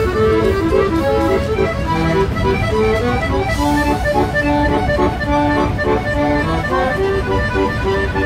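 Background music: an instrumental tune of quick, steadily changing notes.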